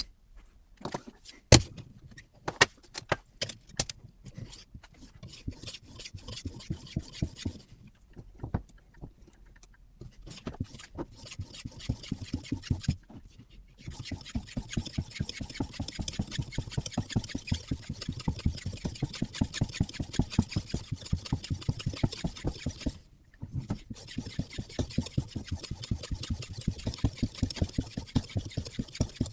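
Sharpening stone on the arm of a Hapstone RS guided system being stroked back and forth along the edge of a SAVAGE CSH bushcraft knife's carbon steel blade. It makes a rapid, even scraping rhythm, with scattered clicks at first and a couple of short pauses.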